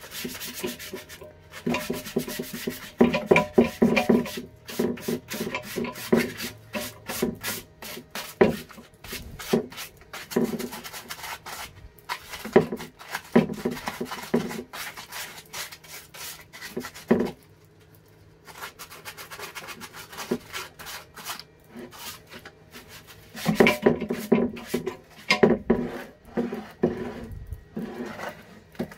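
Rusted bench vice being forced by hand, its stuck sliding jaw scraping and clunking metal on metal as it is rocked back and forth to free it. Long runs of rough scraping and knocks, with a pause of a few seconds past the middle.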